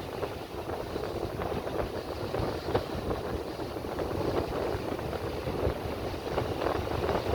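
Sea surf washing on the shore, a steady rushing noise, with wind buffeting the microphone.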